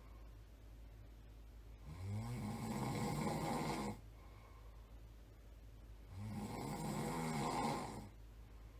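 A person snoring in sleep: two long, low snores about four seconds apart, each lasting about two seconds, with quieter gaps between.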